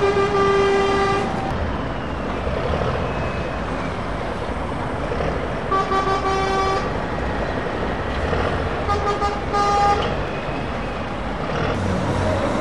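Truck horn sounding over the steady rumble of lorry engines: one long blast at the start, another about six seconds in, and a few short toots near ten seconds.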